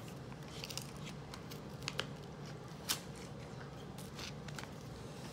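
Paper rustling and crinkling as greeting cards and envelopes are handled, with a few sharp clicks about two and three seconds in, over a steady low hum.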